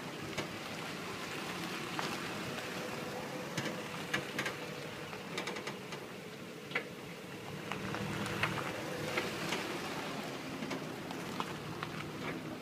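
Nissan Xterra in motion: a steady low hum of road and running noise, with irregular sharp clicks and ticks scattered through it.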